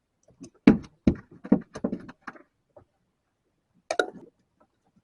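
A run of sharp thumps and knocks on a boat as a freshly landed triggerfish is handled for measuring: several close together in the first couple of seconds, then another cluster near the end.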